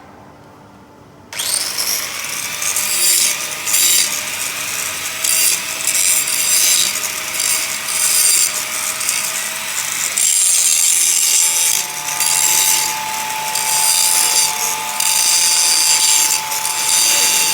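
Stick (shielded metal arc) welding with a 3.2 mm cast-iron electrode at about 90 A: the arc strikes about a second in and runs loud with an uneven, crackling hiss, dipping briefly about ten seconds in.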